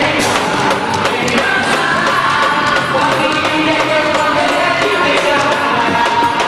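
Loud music with singing over a steady percussion beat, with crowd voices mixed in.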